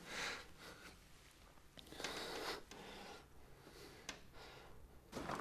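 A man's heavy breathing, muffled as he lies face down in a pillow under a blanket: a few ragged breaths about two seconds apart.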